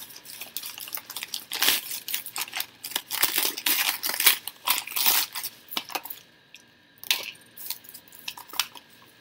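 Irregular crinkling and rustling of packaging being handled, busiest from a second or so in until past the middle, with one more short burst near the end.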